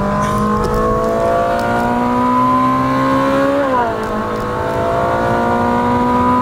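Ferrari 458 Spider's naturally aspirated V8 heard from inside the cabin, accelerating hard with its pitch climbing steadily. About three and a half seconds in the pitch drops sharply as it shifts up a gear, then it climbs again.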